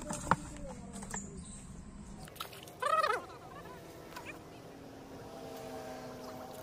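A duck quacks once, loudly, about three seconds in, with a sharp click just before the first second and faint calls in the background after.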